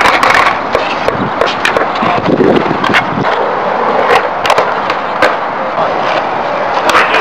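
Skateboards on concrete flatground: wheels rolling with a steady grinding hiss, broken by a run of sharp wooden clacks as tails pop and boards land or slap down on flatground tricks.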